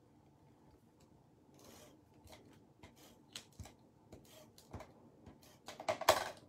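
Adhesive tape runner drawn across the back of a cardstock square in short rasping strokes, with light paper rustles; the loudest strokes come near the end.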